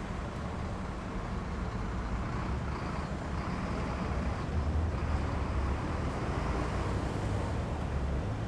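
City street traffic: a steady low rumble of vehicles running past.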